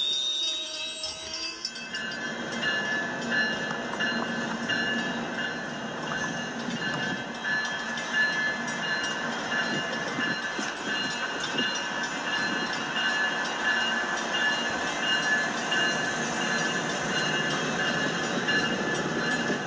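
Motorised LEGO train running on plastic track close by: a steady, high electric-motor whine with wheel noise, starting about two seconds in.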